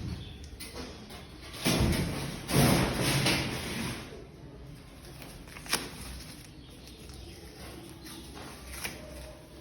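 Handling noises: two long noisy bursts about two and three seconds in, then a single sharp click a couple of seconds later and a softer one near the end.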